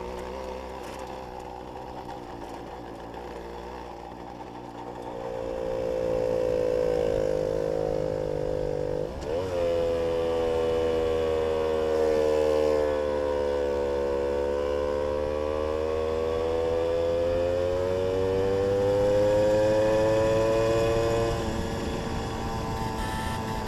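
Jawa 555 moped's 50 cc two-stroke single-cylinder engine running under way. It gets louder and rises in pitch about five seconds in, breaks off briefly and picks up again near nine seconds, climbs slowly in pitch, then eases off near the end.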